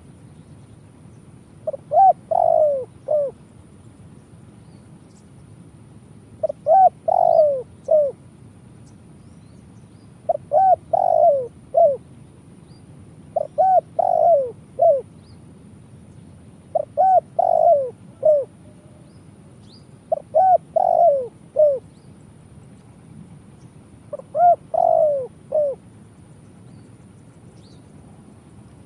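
Spotted dove (tekukur) cooing: seven phrases of a few notes each, repeated evenly about every three and a half seconds, over a steady low hiss.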